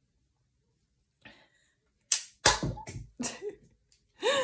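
A cluster of sharp knocks and slaps close to the microphone about two seconds in, one with a heavy low thud, typical of hands handling hair and brushing right next to the phone. A short vocal sound follows near the end.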